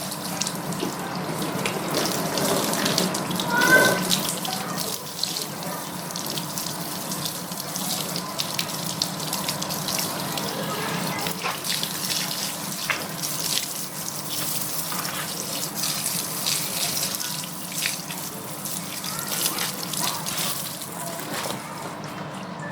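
Water running and splashing while a motorcycle is washed, in a steady stream of irregular splashes, with the loudest splash about four seconds in.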